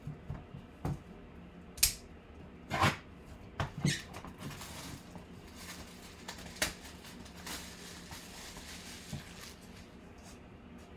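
A small cardboard box handled and worked open by hand: several sharp knocks and clicks in the first four seconds and another about two-thirds of the way through, with scratchy rustling and scraping of the cardboard in between.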